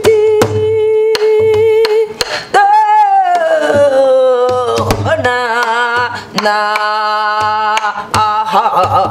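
A woman singing gueum, Korean vocal syllables that imitate an instrumental melody, to a buk barrel drum. She holds one long steady note, then rises to a high note that slides down, then sings wavering notes with vibrato. Low drum strokes and sharp stick clicks come every second or so.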